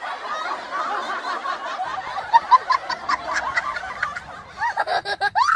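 A crowd of passengers laughing and chattering together, with short bursts of laughter standing out near the end.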